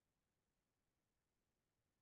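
Near silence: faint recording noise floor.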